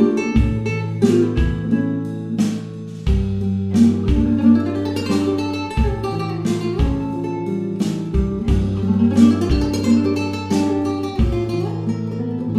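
Background music: plucked guitar playing a flowing melody over a stepping bass line, in a flamenco-like style.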